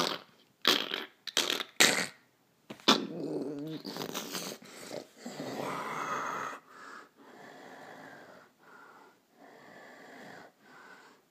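A person making breathy, snore-like vocal noises: several short loud bursts in the first three seconds, a longer louder one about five seconds in, then quieter breaths about once a second.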